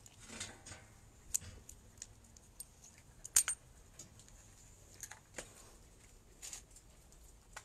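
Scattered light metallic clicks and jingles from several poodles moving about close by, the loudest a quick cluster a little over three seconds in.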